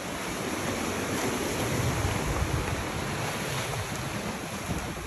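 Steady rushing noise, a little louder in the middle, with faint crunches of footsteps on stony ground.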